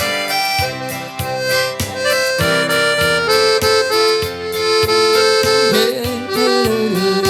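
Instrumental sertanejo music: a free-reed instrument plays the melody in held notes over a steady beat, with the line stepping downward near the end.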